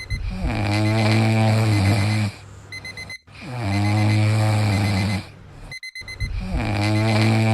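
Looped snoring sound effect: three long, low, drawn-out snores about three seconds apart, each sliding down in pitch as it begins. Faint, quick beeps like an alarm clock fill the gaps between the snores.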